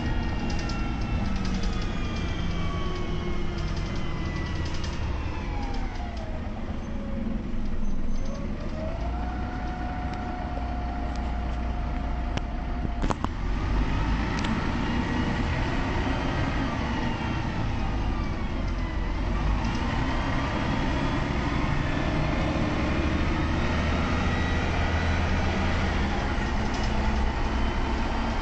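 Cabin sound of a Mercedes-Benz O405GN articulated bus with its OM 447h six-cylinder diesel and Voith automatic gearbox. A whine falls in pitch as the bus slows, holds steady for a few seconds under a heavy low engine rumble, then rises again as the bus accelerates. A short click sounds about halfway through.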